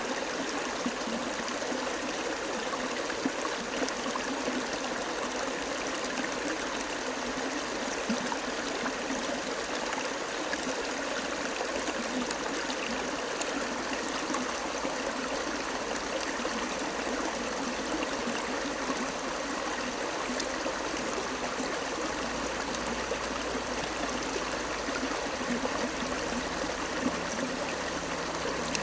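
Water running steadily, a continuous splashing and trickling flow like a stream.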